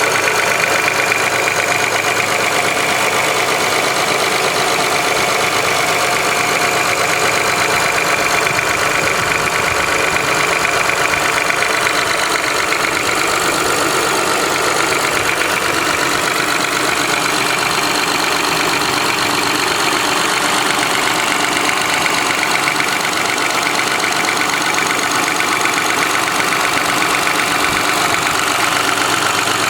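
2005 Honda Accord V6 engine idling steadily with a fast, even ticking, a noise the owner cannot place as piston slap, valve ticking or injector clicking.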